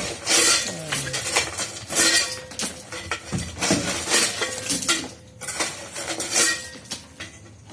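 Broken concrete slab debris and steel clinking and clattering in a series of sharp knocks as the rubble is shifted, with a brief lull about five seconds in.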